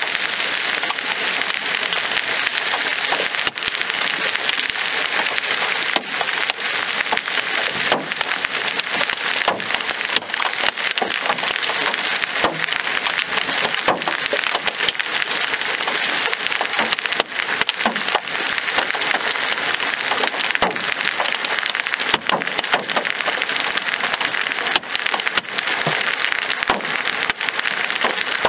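Large hailstones and heavy rain falling hard: a dense steady downpour with constant sharp cracks of hailstones striking hard surfaces.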